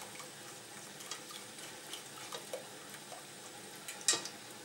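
A whisk stirring a cream sauce in a stainless steel saucepan, with faint scraping and light ticks against the pot, and one sharper knock about four seconds in.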